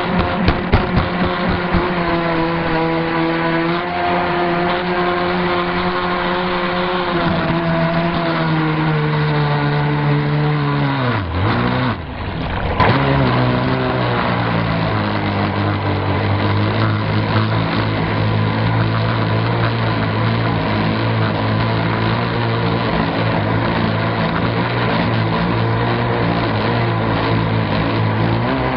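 Radio-controlled speedboat's motor heard from a camera riding on the boat, running at a steady high pitch. About eleven seconds in the pitch falls away and the sound nearly drops out, then it picks up again at a lower steady pitch and rises near the end. A few sharp knocks come in the first two seconds.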